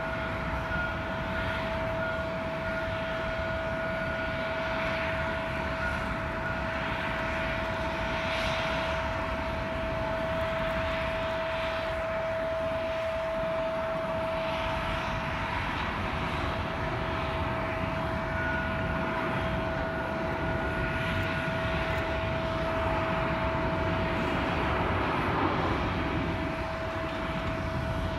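Jet aircraft noise: a steady rumble with a constant high whine.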